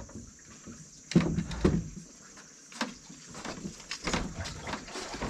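A few knocks and bumps on wooden boards as a container of leafy greens is set down and the leaves are handled. The two loudest come a little over a second in, followed by lighter clicks and rustles.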